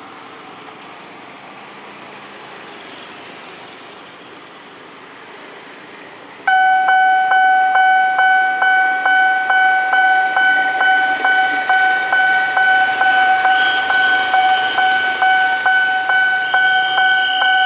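Road traffic idling at a railway level crossing. About six and a half seconds in, the crossing's warning bell starts suddenly and keeps ringing, a high clanging tone struck about two and a half times a second. The bell is the warning that a train is approaching.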